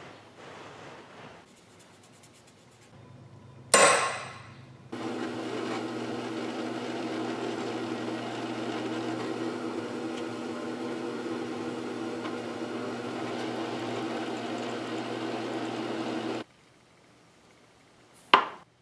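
Drill press running steadily for about eleven seconds, its bit cutting into a half-inch square metal bar, then stopping abruptly. A single sharp metallic strike comes before it and another near the end.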